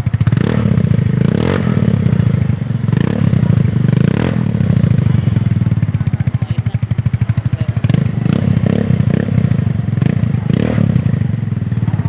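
Motorcycle engine idling through an Akrapovic-branded slip-on muffler, a steady fast pulsing exhaust beat, with a few short throttle blips.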